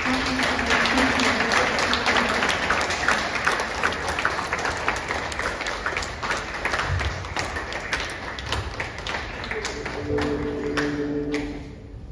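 Audience applauding, a long round of clapping that dies away near the end.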